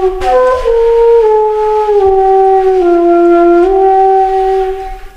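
Background music: a slow melody of long held notes moving in small steps, fading out near the end.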